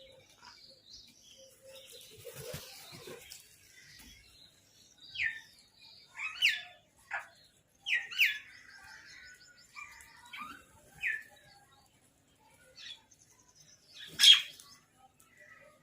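Birds calling: a scattering of short, high chirps, each falling quickly in pitch, with a brief fast trill in the middle and one loud, sharp call near the end.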